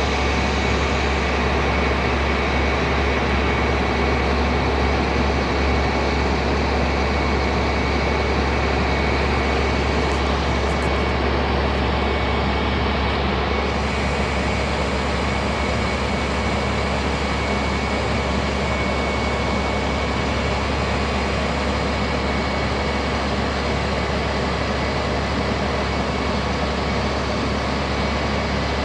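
A truck's 10.8-litre six-cylinder diesel engine running steadily, powering the hydraulics of the Terex Hi-Ranger aerial boom, with a strong low hum.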